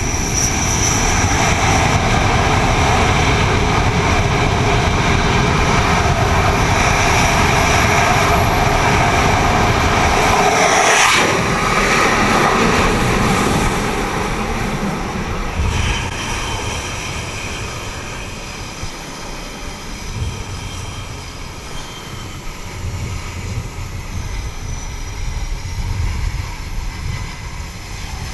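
F/A-18 jet engines running at high power on the carrier deck. About eleven seconds in comes a sudden loud rush with a falling pitch as the jet is shot down the steam catapult past the station. The noise then drops to a lower, steady jet rumble.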